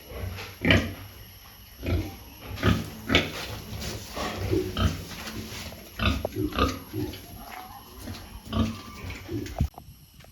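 Domestic pigs grunting, in short irregular grunts every half second to a second, which stop shortly before the end.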